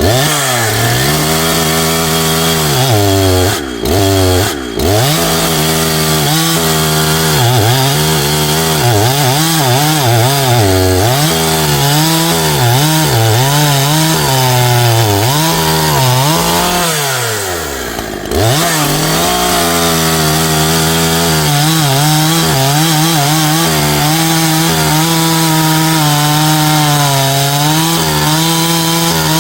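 372 chainsaw with a light bar and full-complement chain running at high revs while cutting wood, its engine note wavering up and down as the chain loads in the cut. The revs drop briefly twice about four seconds in and again about eighteen seconds in before picking back up, then run steadier toward the end.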